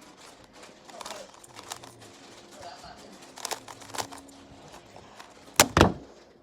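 A Rubik's speed cube turning, with scattered light plastic clicks. Near the end come two loud knocks in quick succession as the solve is finished.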